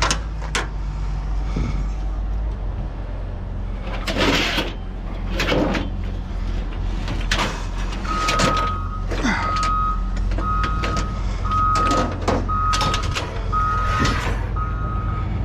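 A vehicle's engine idling, with several sharp metal clanks as scrap is handled and set down. About halfway through, a reversing alarm starts beeping steadily at one pitch.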